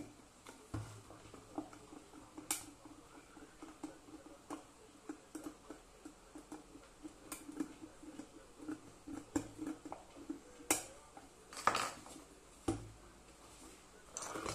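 Stainless-steel electric kettle being handled and screwed back together: a run of small clicks and scrapes of metal and plastic, with a few sharp clicks. Two low thumps come a couple of seconds before the end as the kettle is knocked or set down on the bench.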